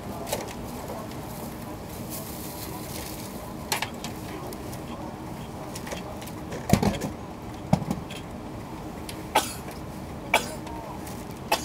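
Steady hum inside a stationary E2 series Shinkansen car during a station stop, broken by a handful of short sharp knocks and thumps, the loudest a little past halfway.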